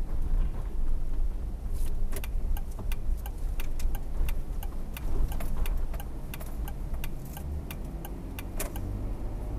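Car driving, a steady low road and engine rumble from inside the cabin, with a run of irregular sharp clicks from about two seconds in until near the end. The rumble eases in the second half.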